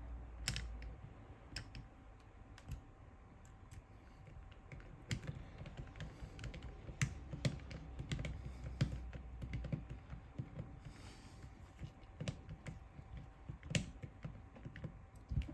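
Irregular light clicks and taps of small metal parts and a screwdriver being handled while an airsoft gearbox shell is screwed back together.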